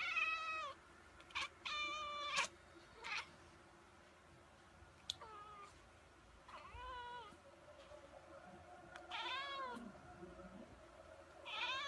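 Ginger long-haired kitten meowing: a string of about seven short, high-pitched meows, each rising and then falling in pitch, spaced a second or two apart.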